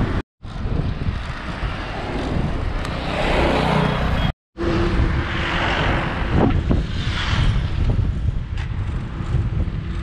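Wind rushing over the microphone of a moving bicycle, mixed with passing highway motor traffic. The sound cuts out completely twice for a moment.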